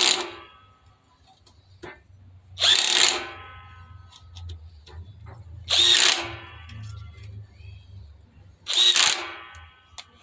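Cordless impact driver run in short bursts of about half a second, roughly every three seconds, each burst trailing off as the driver spins down.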